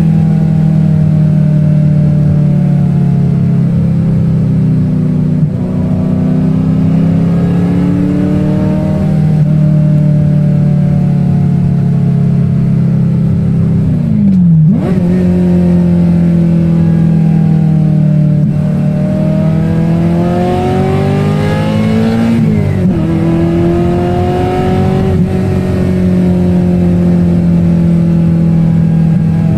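Ferrari 348's V8 engine heard from inside the cabin while driving, its pitch rising and falling with the throttle. About halfway through the revs drop sharply and pick up again as the manual gear lever is moved, and about three-quarters of the way in the revs climb for a couple of seconds and then fall away at another shift.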